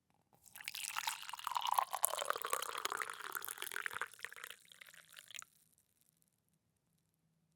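Liquid poured in a stream into a glass, starting about half a second in and stopping sharply after about five seconds, followed by a few last drips.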